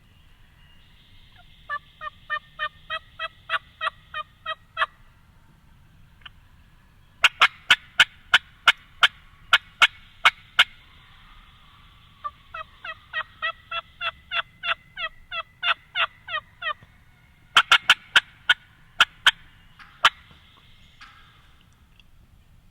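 Turkey yelping: four runs of evenly spaced yelps at about three a second, each note breaking from low to high. The second and fourth runs are louder and harsher.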